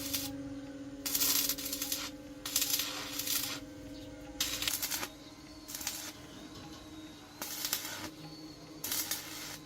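Hand work on metal engine parts: repeated short bursts of metallic scraping and clinking, over a faint steady hum.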